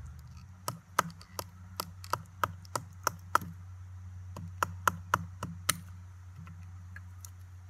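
A knife being batoned through a cedar board, a piece of firewood striking the blade's spine: about fifteen sharp knocks in two quick runs with a pause of about a second between them, splitting the cedar down toward a thin, flat hearth board.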